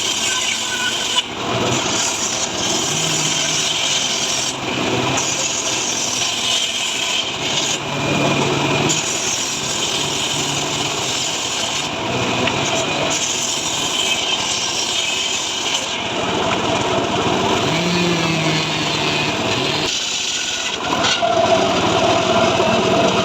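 Chainsaw cutting through dry mahogany, the engine working under load with the chain rasping through the wood. Near the end the engine note becomes steadier and a little louder.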